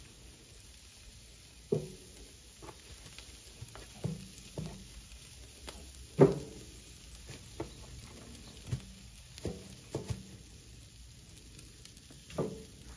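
Raw chicken drumsticks being laid one by one on a hot charcoal grill grate: a series of short knocks as pieces go down and are set against the metal, the loudest about six seconds in, over a faint sizzle.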